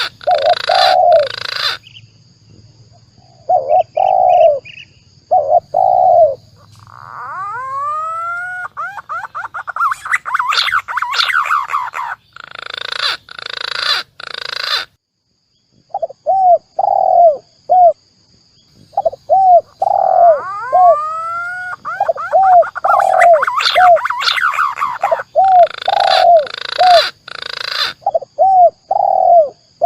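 Spotted dove and green pigeon calls played as a bird lure: runs of short, repeated cooing notes, twice broken by rising whistled phrases followed by harsher, noisier calling.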